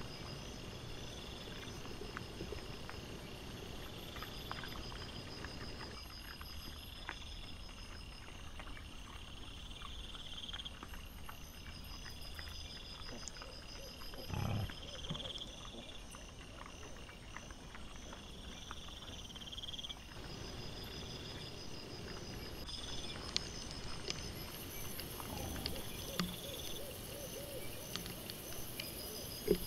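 Night insects chirping in a repeating high pattern, sped up to four times normal speed. About halfway through there is one short low grunt from a wild boar, and a few light clicks and knocks come near the end.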